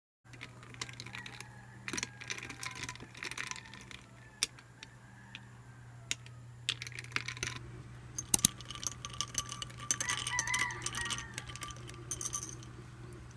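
A metal spoon stirring iced coffee in a glass, clinking against the glass and the ice cubes in quick irregular taps, busiest in the second half, over a steady low hum.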